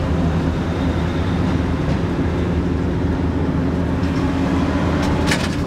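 Ex-JNR diesel railcar with its engine running steadily, a low drone with a few held tones. A few sharp clicks come near the end.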